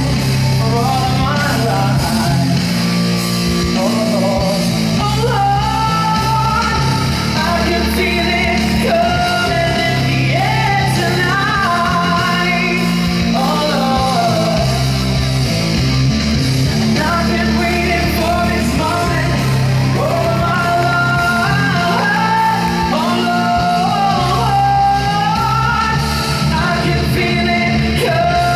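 A song with a sung melody over a steady bass and band accompaniment, played loud over a large hall's sound system.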